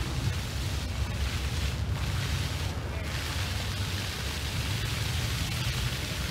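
Wind buffeting the microphone: a steady, fluttering low rumble with hiss over it.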